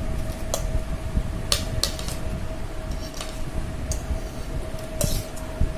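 A spoon clinking against a bowl several times as chopped onion is tipped into beaten eggs, with a steady hum underneath.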